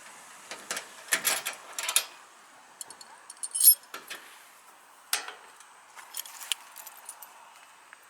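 Irregular clinking and rattling of small hard, metallic-sounding objects being handled, in several short clusters, the loudest a little past three and a half seconds in.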